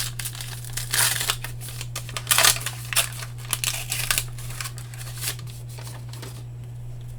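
Crinkling and tearing of a baseball-card pack wrapper being ripped open and crumpled, in irregular rustles that stop about six seconds in. A steady low hum runs underneath.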